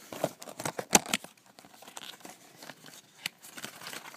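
A mailing package torn open by hand: a quick run of tearing and crinkling packaging, loudest about a second in, then scattered crackles as the torn opening is pulled wider.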